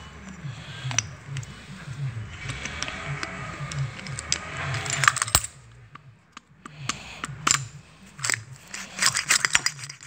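Small metal parts of a Rixson 30 floor closer being handled during reassembly: sharp metallic clicks and clinks, coming thick and fast in the last few seconds.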